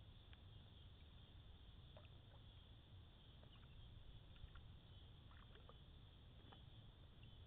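Near silence: a faint low rumble, with scattered brief faint chirps and ticks.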